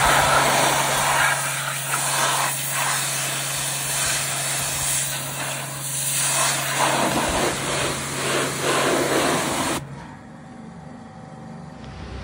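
Pressure washer jetting water into a brake drum: a steady hiss of spray over the pump's low hum, cutting off suddenly about ten seconds in.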